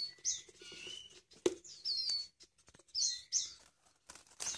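Nestling birds chirping from inside woven bamboo baskets: short, high chirps that drop in pitch, repeated every second or so, with a few light taps and rustles of the baskets being handled.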